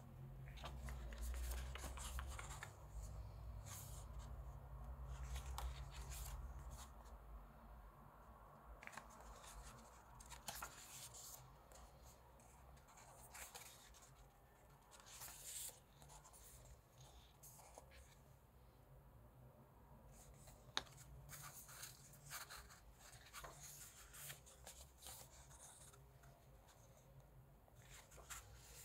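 Pages of a photobook being turned by hand: soft paper rustles and light flicks scattered throughout, over a low handling rumble in the first few seconds.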